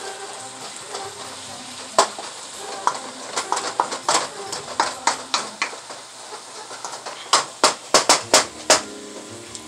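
Callaloo greens, smoked turkey and shrimp sizzle in a hot wok as a wooden spatula stirs them, its strokes knocking and scraping against the pan. A quick run of about six sharp knocks comes near the end.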